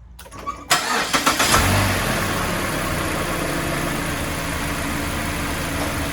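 A 2016 Mazda6's four-cylinder engine is cranked by the starter, catches about a second and a half in, and settles into a steady idle. This is the first start after an oil change, run briefly to push the fresh oil through the new filter.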